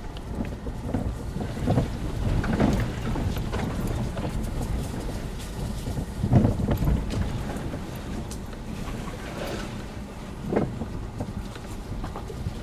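A vehicle driving slowly over a rough dirt track: a steady low rumble with bumps and rattles, and a few louder thuds about three times as it goes over ruts.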